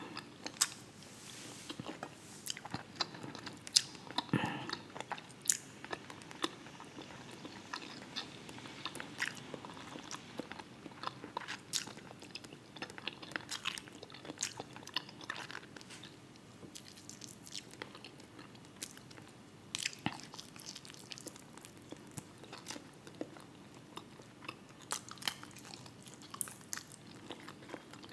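Close-miked chewing and biting of a person eating fried fish, with irregular crunches and mouth clicks.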